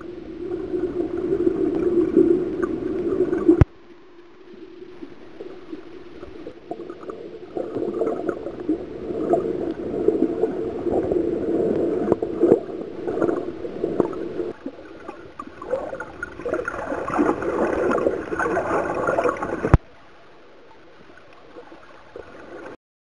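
Muffled underwater sound of seawater sloshing and gurgling past the camera, with scattered clicks and crackles. It cuts off suddenly twice, once a few seconds in and again near the end, and then drops to a faint hiss.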